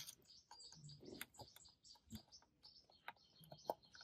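Faint small-bird chirping, with light scattered clicks and taps of a multimeter probe tip touching solder joints on a circuit board.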